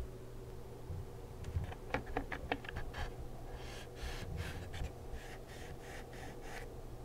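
Hands handling a Royal Kludge RK98 barebone mechanical keyboard. A quick run of small clicks comes about two seconds in, then a series of soft rubbing strokes.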